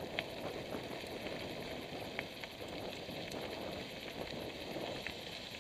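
Mountain bike tyres rolling over a dirt and gravel track, a steady crackling rattle with a few sharp clicks.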